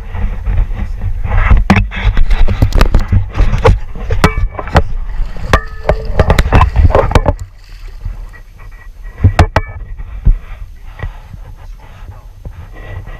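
Blue shark thrashing at the surface beside a boat, churning and splashing the water, with repeated sharp knocks and heavy wind buffeting on the mic. The thrashing dies down after about seven seconds, leaving lapping water and a few sharp knocks.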